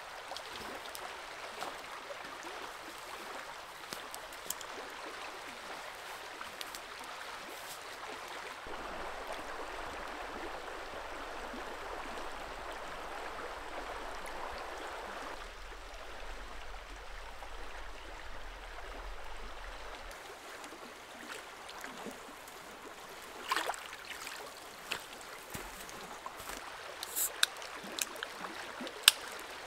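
Steady rushing of a river's flowing water. In the last several seconds, a few sharp clicks and snaps.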